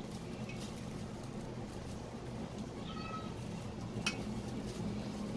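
Small brass plumbing fittings handled at a wall tap outlet, with one sharp metallic click about four seconds in. Just before the click comes a brief high-pitched cry-like tone, all over a steady low hum.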